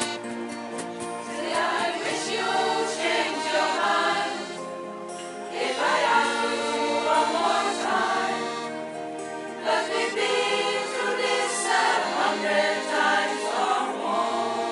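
Choir singing with accordion accompaniment; the voices come in about a second and a half in over the accordion's held chords.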